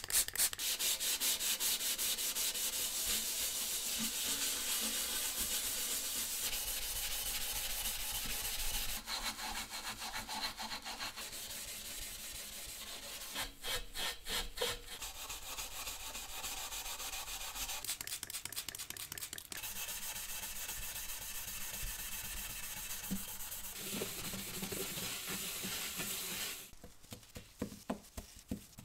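Steel wool pad scrubbed back and forth by hand over the tarnished copper tank of an old gasoline stove: a steady rasping scrub in quick strokes. It stops about two seconds before the end, leaving a few faint ticks.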